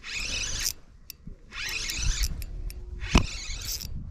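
Spinning reel cranked in short runs as a hooked bass is reeled in, with line and handle scraping and one sharp click a little past three seconds.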